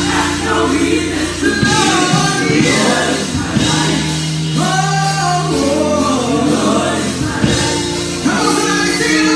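A gospel praise team of women singers sings in harmony into microphones over an instrumental accompaniment that holds sustained low notes.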